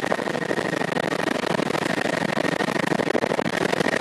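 Helicopter in flight: steady engine and rotor noise with a constant high whine.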